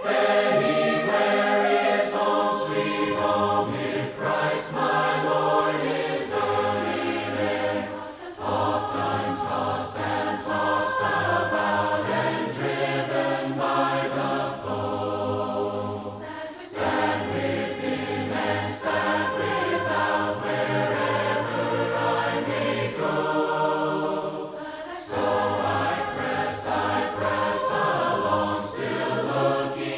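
A group of voices singing a hymn in parts, unaccompanied, with low men's voices held under the melody. The phrases break off briefly about 8, 16 and 25 seconds in.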